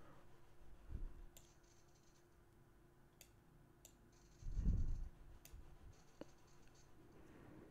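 Quiet room tone with a few faint, sharp clicks and a soft low thump about two-thirds of the way through.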